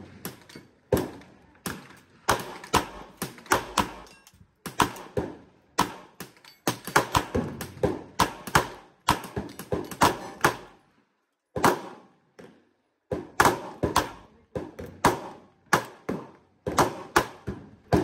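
Handgun gunshots, fired in quick strings with short pauses between them, one to three cracks a second.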